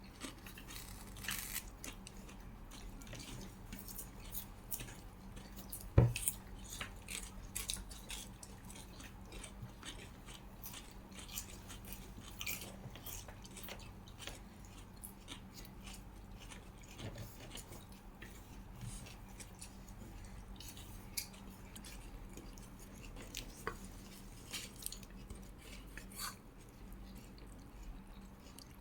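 A person chewing food close to the microphone, with frequent small clicks of cutlery and dishes and one sharp knock about six seconds in.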